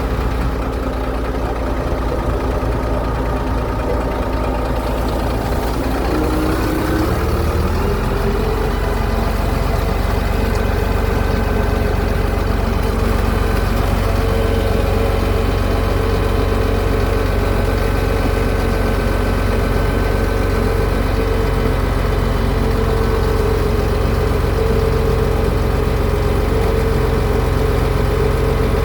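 Heavy construction machinery engine running steadily; about six to eight seconds in it speeds up, rising in pitch, then holds at the higher speed.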